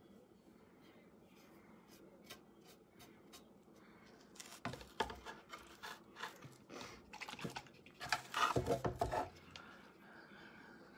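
A run of light clicks, taps and rustles as things are handled on a covered tabletop. It is sparse at first, grows busier about halfway through, and is loudest and densest near eight to nine seconds in.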